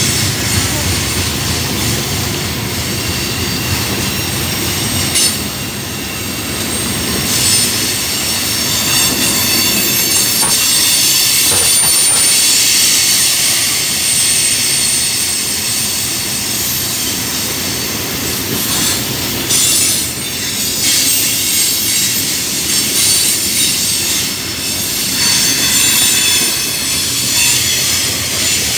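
Coal train cars rolling past a grade crossing: a continuous rush of steel wheels on rail with high-pitched wheel squeal that swells and fades.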